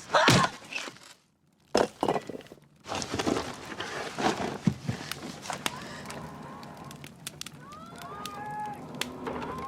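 Rubble and debris crashing and clattering in a collapsed building: a sudden loud crash at the start, another sharp hit a moment later, then scattered knocks of shifting debris.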